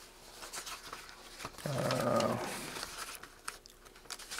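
A short, low, voice-like groan about a second and a half in, lasting under a second, with faint rustling of paper sheets around it.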